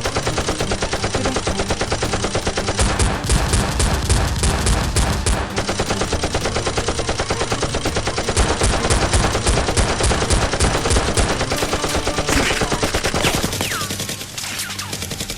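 Rapid automatic gunfire sound effects, in continuous fast bursts. Near the end the firing thins out and a couple of falling whistles are heard.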